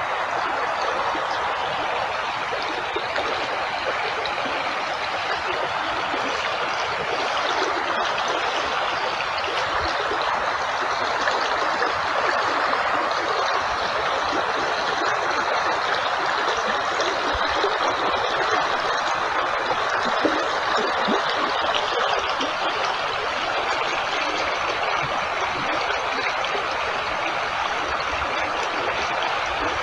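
Running water of a stream, a steady, even rush that holds the same level throughout.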